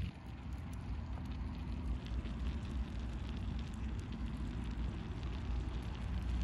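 Wood and charcoal fire crackling with scattered small pops under horned turban shells grilling on a wire grill, the juices in the shells bubbling and sizzling. A low steady rumble sits underneath.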